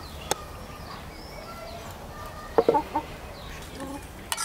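A domestic hen clucking, a quick run of short clucks about halfway through.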